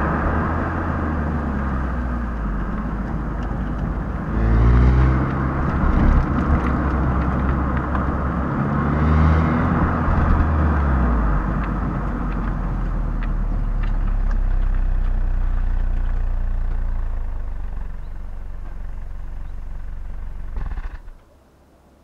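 Stock exhaust of a Hyundai i20 Elite's 1.2-litre four-cylinder petrol engine on the move, mixed with road and wind noise. The revs rise twice, about four and nine seconds in, then the engine settles to a steady, lower drone before the sound cuts off sharply about a second before the end.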